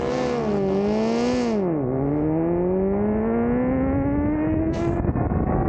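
Superbike engine under power. Its pitch wavers, dips sharply just under two seconds in, then climbs steadily as the bike accelerates.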